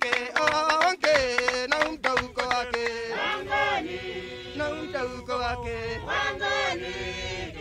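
Chanted group singing in a traditional style, with quick sharp percussion strikes through the first few seconds, after which the voices carry on in longer held notes.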